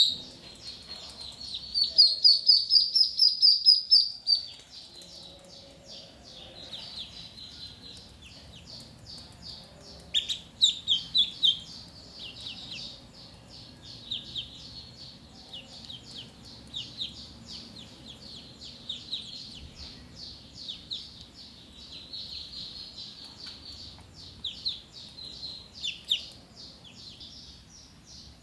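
Ducklings peeping: a constant stream of short, high chirps, with a loud rapid run of peeps about two seconds in and another loud cluster around ten seconds in.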